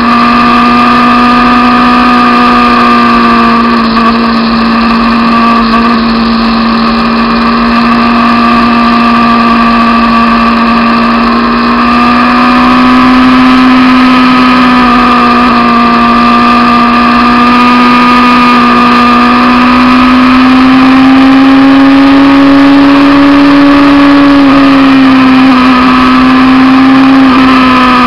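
Honda CBR600 F2 inline-four engine running hard at steady high revs while cruising at speed. Its loud, even drone drifts slowly up and down in pitch, with a brief dip near the end.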